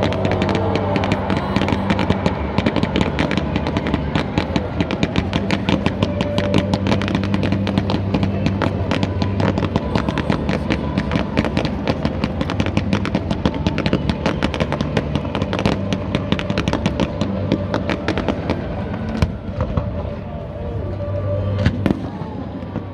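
Fireworks bursting in a rapid, continuous barrage of bangs and crackles, thinning out in the last few seconds to a few sharp single bangs.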